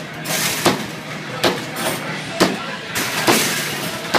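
Pop-A-Shot arcade basketballs striking the hoop and backboard in quick succession, a sharp thump a little more than once a second, as shots go up one after another.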